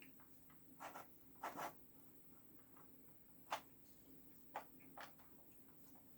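Faint scraping and a few light clicks as a thin pry tool works along the seam of an all-in-one PC's back cover, against its clips. There are five short sounds, the sharpest about three and a half seconds in.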